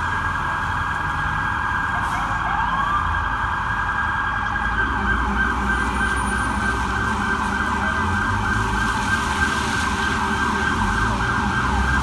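Electronic emergency siren of the approaching NYPD bomb squad truck, cycling rapidly up and down in pitch. A deeper rumbler tone joins it about five seconds in, over the low rumble of street traffic.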